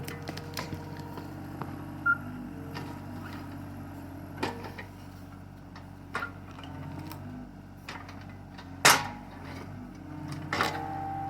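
Excavator engine running steadily while the bucket works a stump cluster, with several sharp knocks and clanks, the loudest about nine seconds in.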